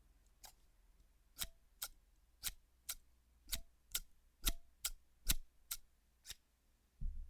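Metal scissors snipping close to the microphone: about fourteen sharp clicks, falling roughly in pairs as the blades open and close, some with a faint short ring.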